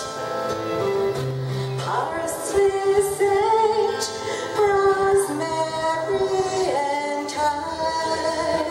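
A woman singing live into a microphone, holding long notes and sliding between pitches, while strumming a twelve-string acoustic guitar.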